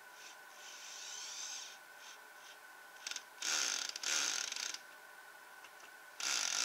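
Drill-driver spinning a bit to drive screws into the countersunk holes of a stainless steel hinge on plywood. There is a softer run about a second in, then two short loud runs a little past halfway as the first screw seats, and another loud run starts near the end on the next screw.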